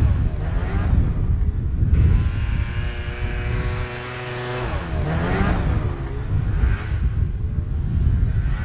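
Snowmobile engine running under load, a steady drone whose pitch dips and rises briefly near the start and again about five seconds in.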